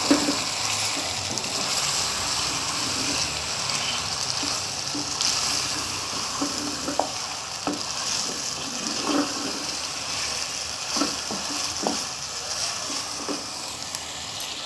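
Chicken with tomatoes, green onion and green garlic sizzling in ghee in a pan, the tomato juice cooking off, with a spoon scraping and stirring the pan several times in the second half.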